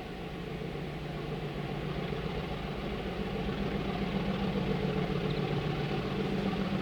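Diesel locomotive's engine running steadily, its deep drone growing gradually louder.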